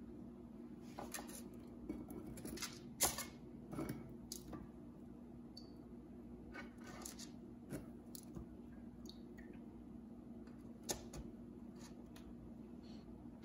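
Soft taps, rustles and small wet sounds of milk-dipped ladyfingers being laid side by side in a parchment-lined metal baking pan, with a sharper tap about three seconds in. A faint steady hum runs underneath.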